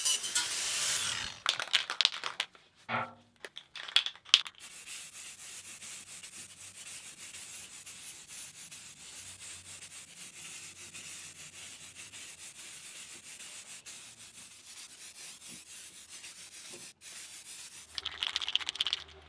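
Hand sanding on the bare steel tray of a wheelbarrow: steady back-and-forth scrubbing strokes, about two a second.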